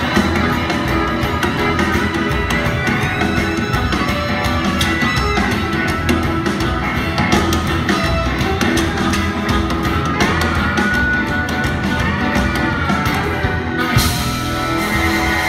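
Live country band playing an instrumental break: harmonica played into a vocal mic, with electric guitar and band accompaniment.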